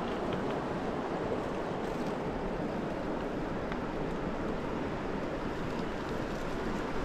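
Steady rushing of flowing river water, even and unbroken.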